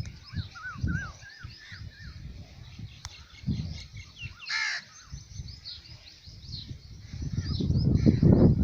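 Birds chirping and calling, with a quick run of rising-and-falling calls in the first two seconds and one louder call about halfway through. Low rumbling noise underneath grows louder near the end.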